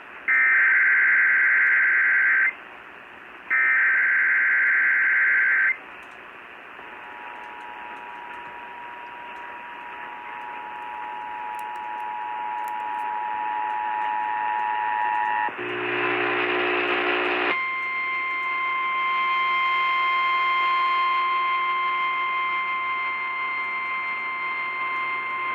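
Emergency Alert System tones received over AM radio with static hiss. First come the last two bursts of the SAME header's warbling digital data, a second apart. Then about eight seconds of the two-tone attention signal, a short buzzy tone, and a single steady tone until the end.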